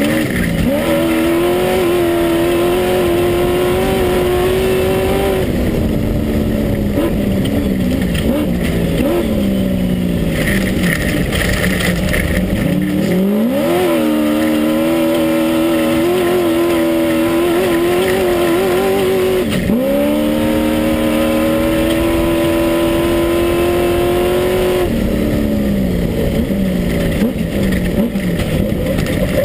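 Class 1 unlimited off-road race buggy's engine heard from inside the car at race pace, its note holding high, falling away as the throttle comes off and climbing back again several times, with a sudden sharp dip and recovery about twenty seconds in. A steady rough noise of the car running over rough ground lies under it.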